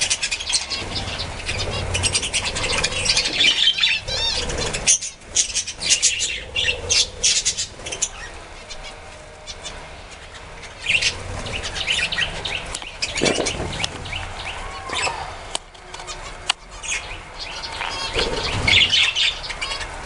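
A flock of budgerigars chattering and chirping continuously, with wing flutters mixed in. The flock is quieter for a few seconds around the middle.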